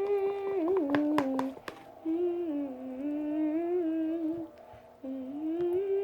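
A girl's voice humming a wordless tune in three phrases of long held notes, with short pauses between them.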